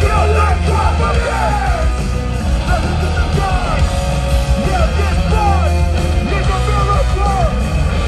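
Hardcore band playing loud live music, with yelled vocals over a heavy, dense low end.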